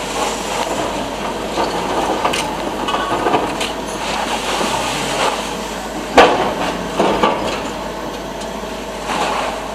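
Demolition work on a tower block: a steady clatter of machinery and debris, with sharp knocks of breaking material, the loudest about six seconds in and more about a second later and near the end.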